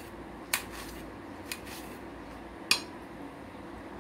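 Kitchen knife chopping tomato on a stainless-steel plate: three sharp clicks of the blade striking the metal, the third the loudest.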